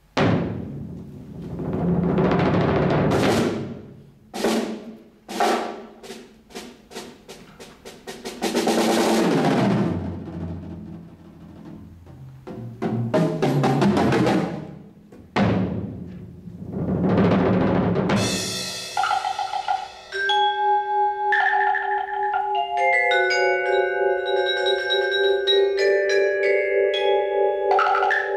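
Percussion trio playing on drums and mallet instruments: swelling rolls and sharp separate hits on the drums, then, about two-thirds of the way in, ringing pitched notes of mallet percussion that hold and overlap.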